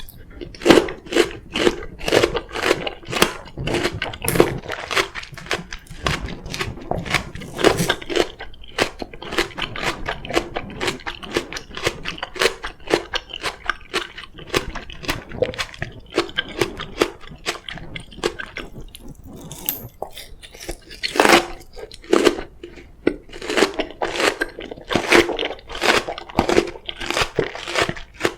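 Close-miked crunching and chewing of crisp Korean oriental melon (chamoe), several wet crunches a second, with a few louder bites.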